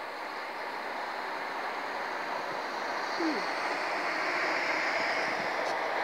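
Steady distant rumble of outdoor background noise, slowly growing louder, with no siren sounding. A short falling call is heard about three seconds in.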